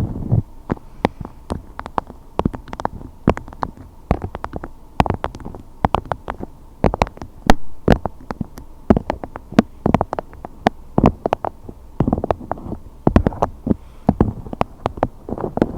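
Close-miked clicking and tapping: sharp, irregular clicks, several a second, over a low muffled rumble.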